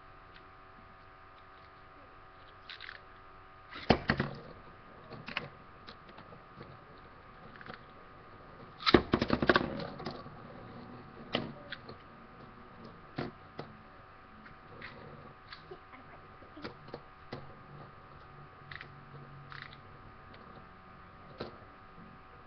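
Fang Leone and L-Drago Guardian metal-wheeled Beyblade tops launched into a plastic stadium and clacking against each other as they spin. There is a short burst of clattering about four seconds in and a louder one around nine to ten seconds, then scattered single clicks as the tops collide.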